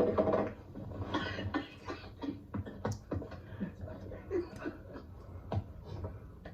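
Irregular mouth noises, with short coughs and splutters, from a person forcing down a bowl of dry fish food flakes.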